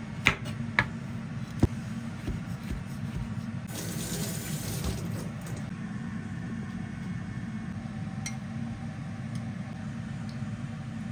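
Kitchen knife slicing shiitake mushrooms on a wooden cutting board, a few sharp chops in the first two seconds, over a steady rushing noise. A brighter hiss rises about four seconds in and fades a second and a half later.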